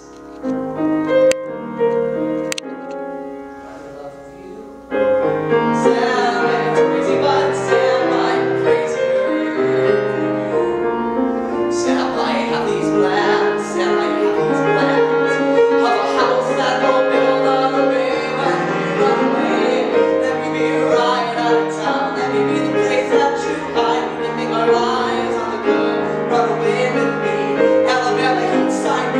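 A grand piano plays accompaniment, softly for the first few seconds and then fuller. Partway in, a man's voice joins, singing a musical-theatre song live over the piano.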